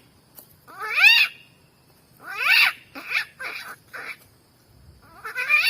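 A man imitating a cat's meowing with his mouth. It is a series of rising meow-like calls: a long one about a second in, another about two and a half seconds in followed by three short ones, and another starting near the end.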